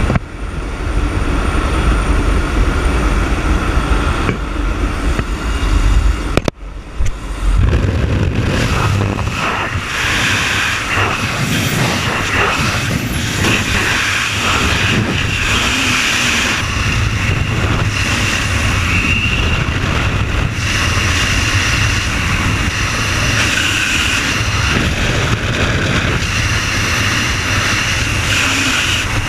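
A vehicle running, a steady loud rumble with a hissing, rushing upper band, broken by a brief sharp drop about six and a half seconds in before it carries on.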